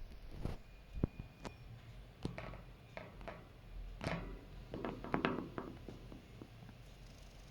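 Budgerigars moving about their cage: scattered light taps and scuffles, busiest about four to five and a half seconds in.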